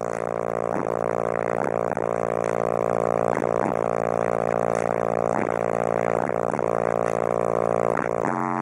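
Bass-heavy music played loud through two DC Audio XL 18-inch subwoofers inside the car's cabin: a sustained, overdriven low drone with a pulse recurring about every second, shifting just before the end.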